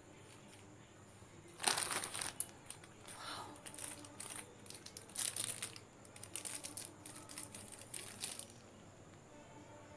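Clear plastic protective film crinkling as it is peeled off a new pair of sunglasses. It comes in irregular bursts from a couple of seconds in until just past eight seconds, loudest at the start.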